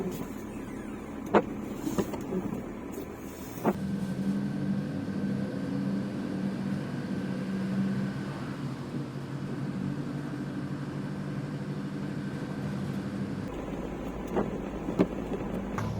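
Ford Transit camper van: a few clicks and knocks, then the engine running steadily from about four seconds in as the van drives off, with a few more clicks near the end.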